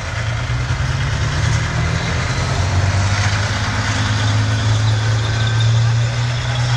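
Challenger 2 tanks' V12 diesel engines running under way, a deep steady drone that grows a little louder after a couple of seconds, with wind noise across the microphone.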